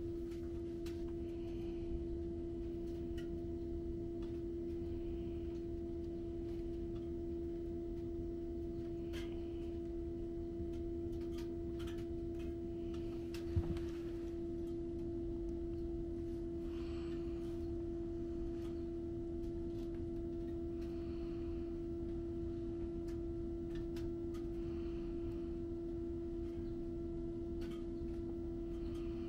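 City bus interior with its machinery running while the bus stands still: one steady, unchanging hum over a low rumble. There are a few faint clicks and a short knock about 14 seconds in.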